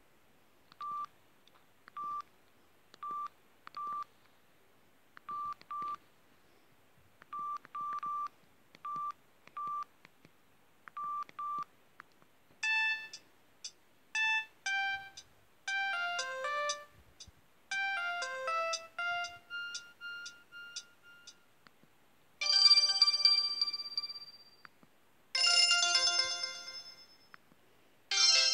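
Samsung SGH-E570 mobile phone playing its ringtones one after another. First comes a simple ringtone of single and double high beeps repeated at an even pace, then a short melody of stepped, mostly falling notes. After that come three brighter, fuller ringtone sounds, each ringing out and fading, about three seconds apart.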